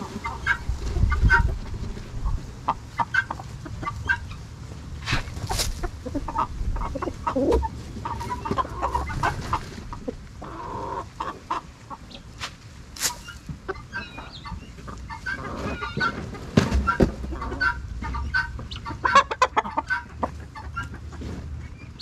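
A flock of backyard chickens clucking as they peck at scattered feed, with many short sharp taps and clicks among the calls.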